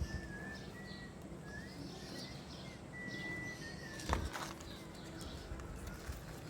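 Birds whistling and chirping: a string of short, steady whistled notes with higher chirps between them, and a single sharp knock about four seconds in.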